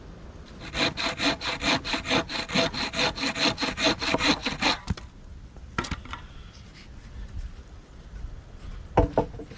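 Hand saw cutting through wood in quick, even strokes, about five a second for about four seconds. Near the end comes a single sharp knock, the loudest sound.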